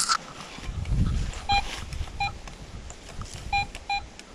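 Metal detector giving four short beeps in two pairs as its search coil is swept over a freshly dug hole, each beep signalling metal under the coil. Faint rustling and a low bump of handling underneath.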